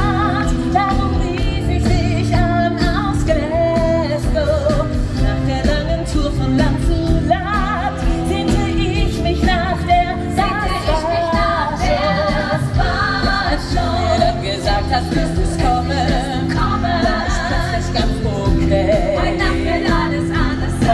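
Live musical-theatre number: band accompaniment with singing, played and sung on stage and heard from the audience.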